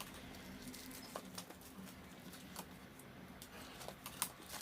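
Faint, scattered clicks and taps of hands handling a phone's retail box and its packaging, a few seconds apart.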